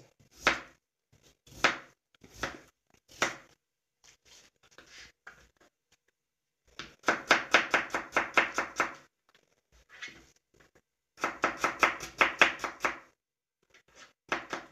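Kitchen knife cutting raw potato on a plastic cutting board: a few separate cuts at first, then two quick runs of chopping strokes at about six a second.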